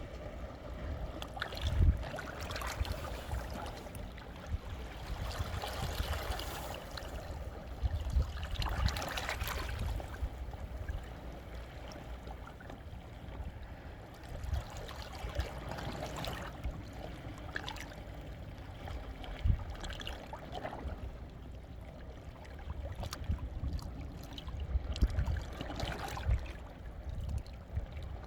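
Sea waves washing in over shoreline rocks, with water trickling and gurgling between the stones; the wash swells and ebbs every few seconds.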